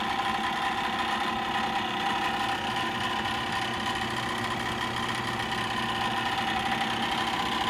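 2010 Bryant gas furnace's draft inducer motor and fan running with a steady, rapid clicking rattle, like a card in bicycle spokes. This is the sign of a fault in the inducer, which the owner thinks is likely the motor's ball bearings.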